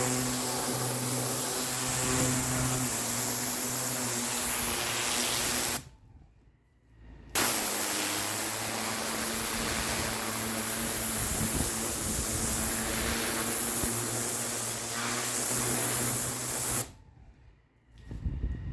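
Pressure washer lance spraying onto imprinted concrete: a steady loud hiss over the machine's engine hum. It breaks off suddenly twice, for about a second and a half each time.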